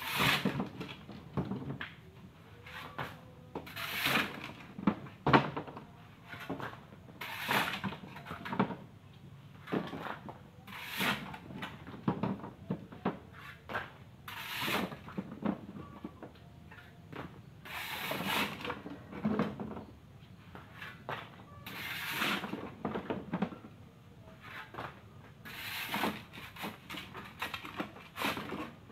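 A shovel scraping into loose gravel on a truck bed, with the gravel thrown down onto a pile, repeated about every three to four seconds with smaller knocks and scrapes in between.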